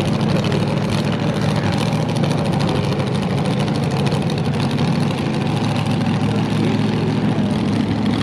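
Front-engine dragster's engine idling steadily, a continuous low rumble with no revs.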